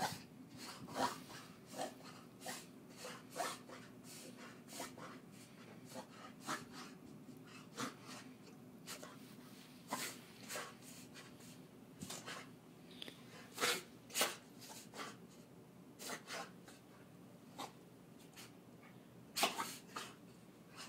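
A dog having a reverse-sneezing fit: a long run of short, noisy gasps drawn in through the nose, about two a second and unevenly spaced. The loudest come a little past the middle and near the end.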